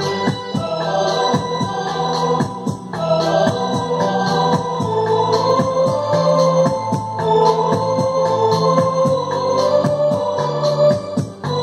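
Instrumental interlude of a karaoke backing track: an organ-like keyboard melody over held bass notes and a steady drum beat, with no singing.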